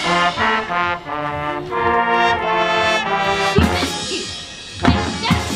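Marching band brass section playing a sustained passage of held and moving notes. About three and a half seconds in, the full band comes in with a heavy low hit, and a second sharp accent follows about a second later.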